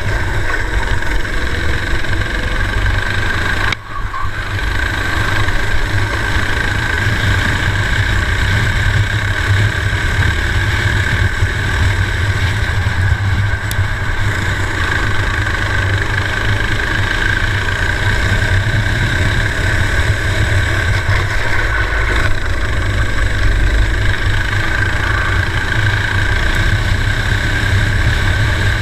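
Racing kart's engine running hard at race pace, heard from a camera mounted on the kart, with a steady low rumble under it. The sound drops briefly about four seconds in.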